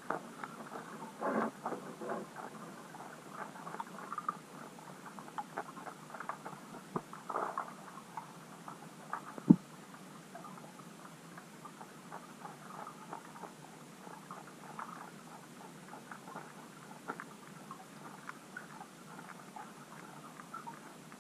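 Underwater crackling and small irregular clicks, thicker in the first half, with one sharp click about nine and a half seconds in.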